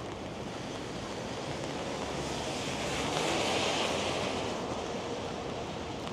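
Car tyres hissing past on a rain-wet street: a steady hiss that swells to a peak in the middle and fades again, over a background of street noise.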